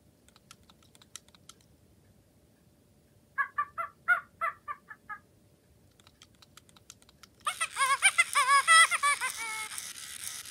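Original 2016 WowWee Fingerlings baby monkey toy reacting to being hung upside down, playing its electronic baby-monkey chirps and chatter through its small speaker. Faint clicking first, then a short run of chirps about three seconds in. From about seven and a half seconds comes a longer, louder burst of warbling chatter and giggles with a hiss.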